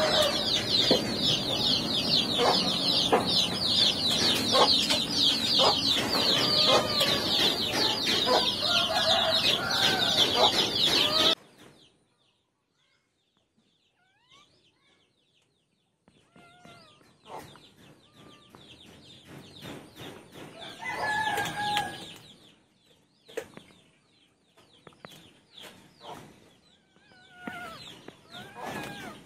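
Chickens clucking over a dense chorus of rapid high chirping, cut off abruptly about eleven seconds in. After a few seconds of near silence, fainter, scattered clucks and chirps return.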